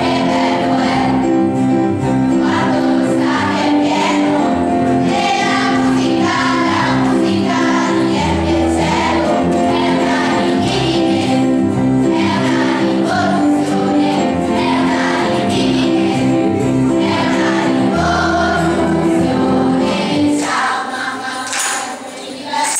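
Children's choir singing in unison with guitar and keyboard accompaniment and a steady bass line. A little over twenty seconds in the song ends and the sound drops away.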